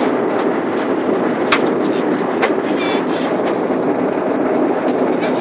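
Steady cabin noise of an airliner in flight at altitude: a constant rush of engine and airflow noise, with a few sharp clicks.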